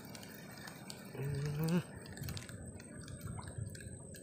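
A short, low hum from a man's voice, rising slightly, about a second in, over the steady wash of a flowing river and scattered faint clicks.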